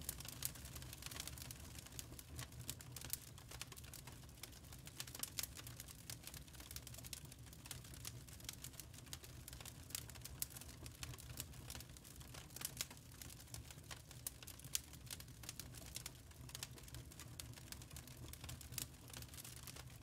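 Wood fire crackling in a fireplace: irregular sharp pops and snaps, several a second, some louder than the rest, over a steady low hum.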